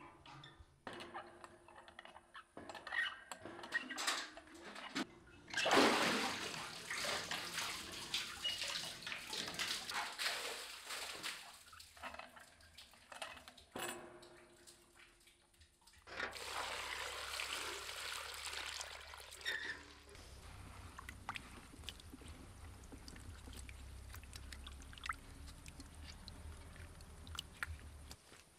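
Water from a well bucket: knocks and short creaks as the galvanized bucket is handled, then loud pouring and splashing twice. Near the end, quieter sloshing and small knocks as potatoes are rubbed clean by hand in a bowl of water.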